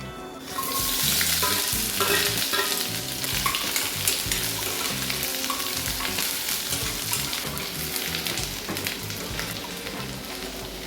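Food sizzling in hot oil in a pan, starting suddenly about half a second in, with the clicks and scrapes of a spoon stirring it.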